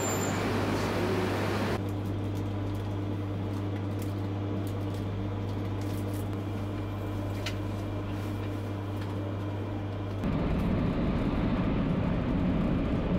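Steady running noise inside a Tsubasa shinkansen: an even hum with a faint steady tone. About ten seconds in it gives way to a louder low rumble of the train running at about 270 km/h.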